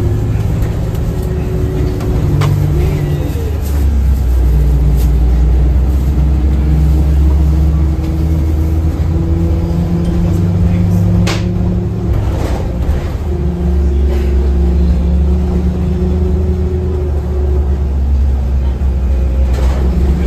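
Interior of a 2007 Orion VII hybrid-electric city bus under way: a steady low drivetrain hum with whining tones that step up and down in pitch several times. A couple of sharp knocks or rattles stand out, one about halfway through and one near the end.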